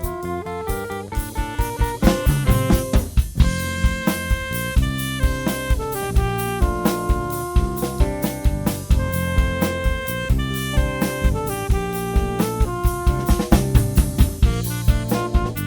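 Instrumental jazz arrangement for saxophone, guitar, bass guitar and drum kit, the saxophone carrying the melody over a steady drum beat. The drums grow fuller and more driving about two seconds in.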